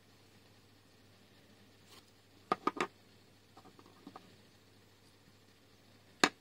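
Small plastic LEGO pieces being handled on a wooden desk: three quick sharp clicks about two and a half seconds in, a few soft taps after, and one more sharp click near the end.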